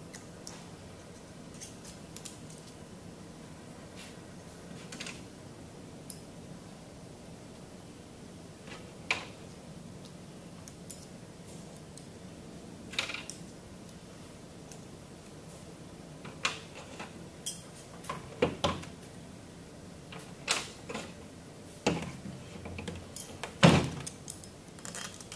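Scattered small metal clicks and clinks as stainless steel pump parts and small hand tools are handled on a table while seals are taken out of the housing. They come sparsely at first, grow more frequent in the second half and peak with a louder clink near the end.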